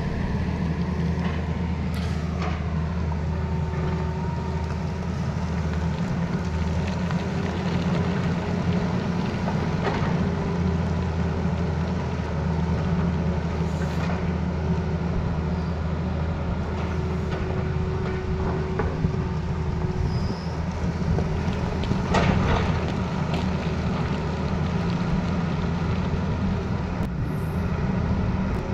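Tata Hitachi Zaxis excavator's diesel engine running steadily under load while it digs a rocky road cut. A few sharp knocks of the bucket striking rock, the loudest about 22 seconds in.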